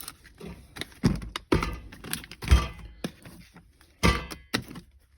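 Cardboard firework cakes being handled, moved and set down: a series of irregular thuds and knocks with rustling in between, the heaviest two about two and a half and four seconds in.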